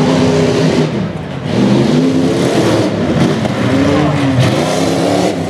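A modified tuff-truck pickup's engine revving hard as it drives over dirt mounds, its pitch climbing and falling again and again with the throttle. It eases off briefly about a second in.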